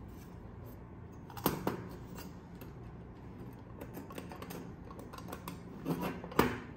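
Thin stainless steel sheet parts of a tool-free, slot-together coffee dripper being slid apart by hand: light metallic ticks and scrapes, with two sharp clinks about a second and a half in and two more near the end, the last the loudest.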